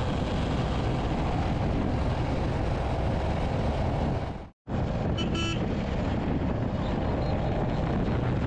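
Wind rush and road noise on a riding motorcycle's microphone, steady, over the Royal Enfield Hunter 350's single-cylinder engine. The sound cuts out abruptly about halfway through, then a brief horn beep sounds in traffic.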